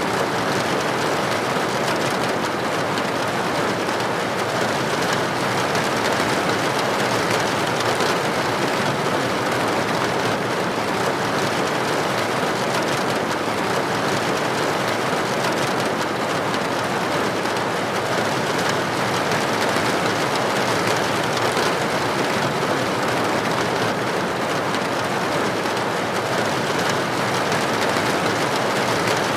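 Steady rain falling, a dense, even hiss of drops that holds at one level throughout.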